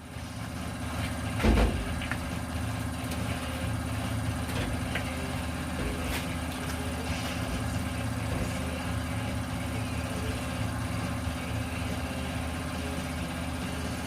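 A motor running steadily with an even low hum, and one thump about a second and a half in.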